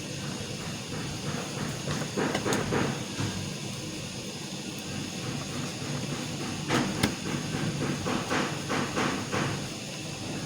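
Screws being driven by hand to fasten a laptop hinge to its housing: two spells of quick, short scraping clicks, the second longer, over a steady low hum.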